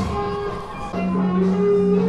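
Guitar music playing, with long held notes coming in about a second in.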